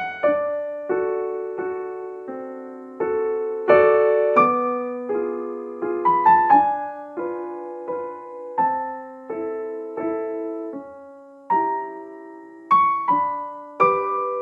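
Background music: a gentle piano melody of single struck notes and chords, each fading away before the next.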